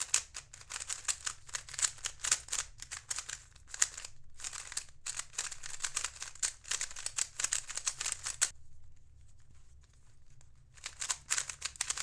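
Plastic cube layers clicking and clacking in quick runs as a puzzle made of two 3x3 cubes glued at a corner is turned by hand. The turns stop for about two seconds late on, then start again. The puzzle turns very tight and stiff.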